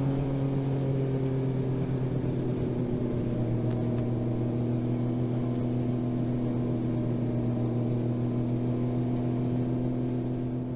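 Honda motorcycle's engine running at a steady speed while cruising: a constant hum with no change in revs, over a haze of road and wind noise.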